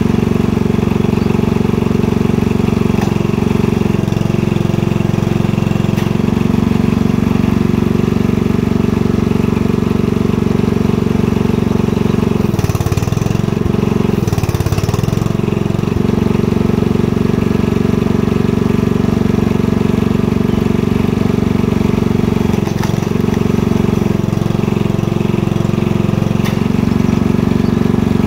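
Honda 10.5 hp engine on a log splitter's hydraulic power pack, running steadily and dropping in pitch several times as it takes the load of the ram, most deeply twice in the middle, where a hiss comes in with the dips.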